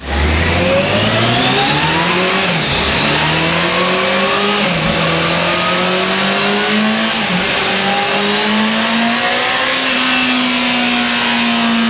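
2012 Kawasaki ZX-14R's 1441 cc inline-four engine running hard on a chassis dyno, stock and on break-in oil. Its pitch climbs, dips briefly three times, then rises again and holds high near the end.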